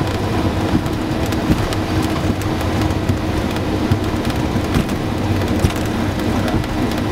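Cessna 172's piston engine idling with the propeller turning slowly, heard inside the cabin as a steady low drone with scattered sharp ticks.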